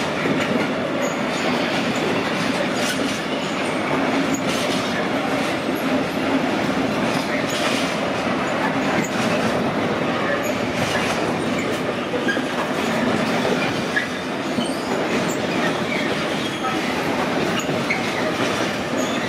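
Intermodal freight train of pocket wagons loaded with lorry trailers rolling steadily past, a continuous rumble of wheels on rail with occasional clicks.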